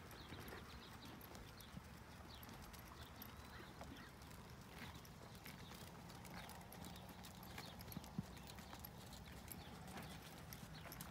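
Faint, irregular hoofbeats of a horse on a soft dirt riding arena, with one sharper knock about eight seconds in.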